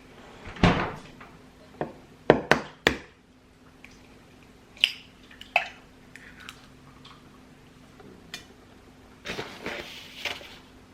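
Household handling sounds: a string of sharp knocks and clatters of objects, dishes or cupboard doors being picked up and set down. There is a quick run of three hits about two and a half seconds in and a busier patch of handling near the end, over a faint steady hum.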